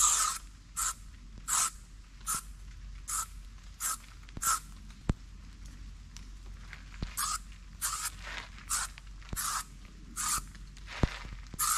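Footsteps at a steady walking pace, about one step every three-quarters of a second, pausing for a couple of seconds midway. Two sharp clicks stand out, one about five seconds in and one near the end.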